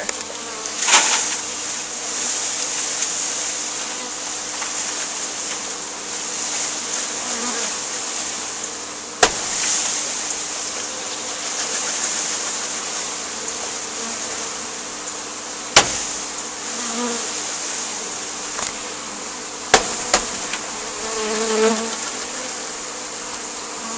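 A mass of honeybees buzzing steadily and loudly as a package of bees is shaken out into a hive. Three or four sharp knocks, about nine seconds in, near the middle and twice close together near the end, as the package box is jolted to dislodge the bees.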